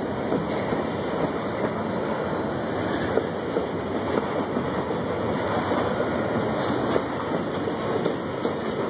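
Freight cars (boxcars and covered hoppers) rolling past close by: a steady rumble of steel wheels on rail, with occasional sharp clacks.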